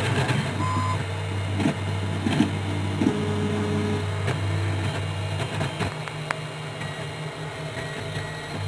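3D printer running a print: a steady low hum with short whirring stepper-motor tones that change pitch every second or so as the head moves, and a few light clicks.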